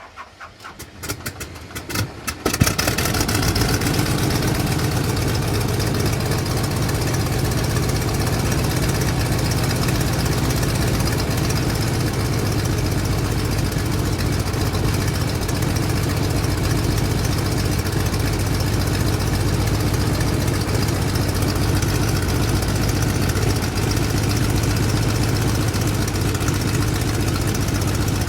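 Biplane engine being started: a couple of seconds of irregular cranking and sputtering firings, then it catches about two and a half seconds in and runs steadily.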